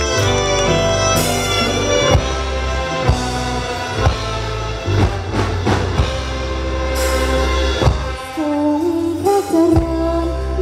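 Thai luk thung band playing through a PA system: heavy bass and a drum beat about once a second, with a sliding melody line coming in near the end.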